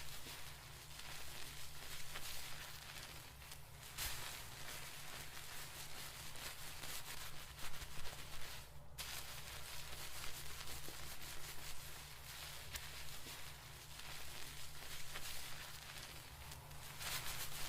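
Fingers scrubbing hair against the scalp during a seated dry shampoo, a continuous crackly rubbing noise that pauses briefly about nine seconds in.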